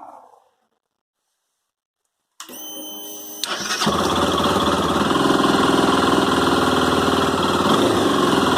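Honda CB 300 single-cylinder engine being electric-started: after a pause, the starter motor cranks with a whine for about a second, then the engine catches and runs steadily. The owner is asking about a noise on starting, which he describes as clicks inside the engine, worse in the morning.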